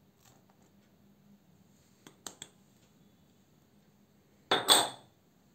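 Small porcelain dish and glass mixing bowl clinking as kitchen crockery is handled: a few light taps about two seconds in, then a louder, ringing clink of dishes about four and a half seconds in.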